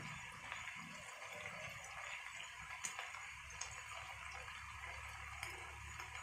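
Chopped onions and bell peppers frying in oil in a pan, a faint steady sizzle with a few small pops and crackles.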